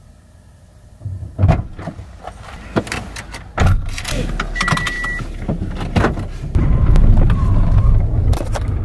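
A person getting into a car: a few knocks and clicks and a door shutting, then a short electronic beep. About two-thirds of the way through, the car's engine starts and runs with a steady low rumble.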